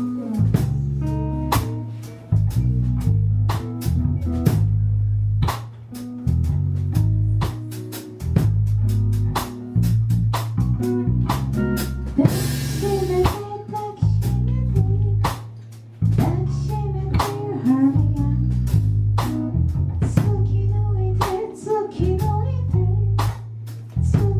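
Band music with drum kit, bass guitar and electric guitar playing a steady beat.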